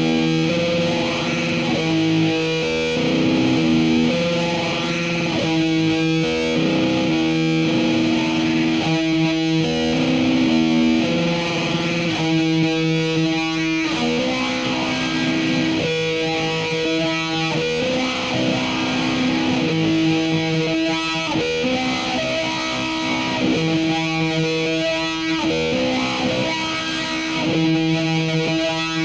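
Electric guitar played through heavy reverb, sustained chords shifting every couple of seconds in a slow repeating figure.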